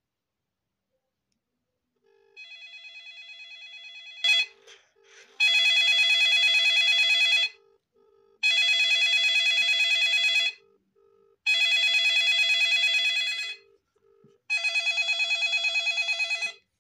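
Samsung SGH-Z400 mobile phone ringing for an incoming call: an electronic ringtone of pulsing tones, a quiet first ring followed by four loud rings about two seconds long with short gaps between them.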